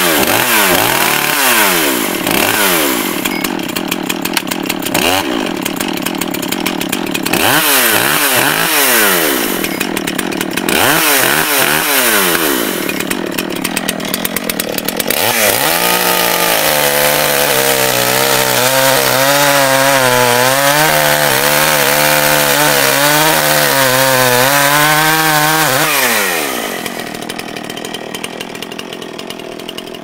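Two-stroke chainsaw revving up and down again and again, then held at high speed for about ten seconds with its pitch wavering. It drops back toward idle near the end and cuts off.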